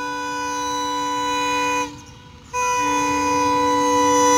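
Indian Railways diesel locomotive's horn sounding two long, steady blasts as the train approaches: the first stops about two seconds in, and after a short break the second starts and grows louder.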